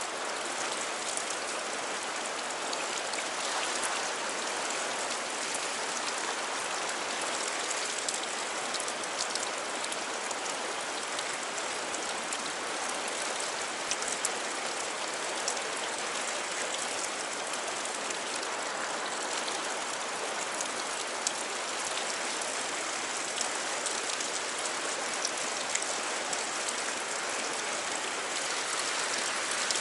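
Fast river current churning through a narrow rock channel: a steady rushing hiss of whitewater.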